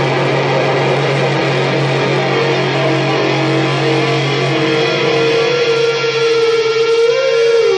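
Electric guitar droning on sustained, noisy held notes. The low note fades out about four and a half seconds in, leaving one high held note that bends down and back up near the end.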